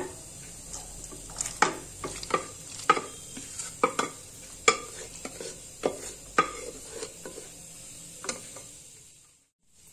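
Wooden spatula scraping and knocking in a nonstick pan as soft cooked chana dal is tipped in from an aluminium pressure-cooker vessel and stirred, with irregular clacks every half second or so. The sound dies away near the end.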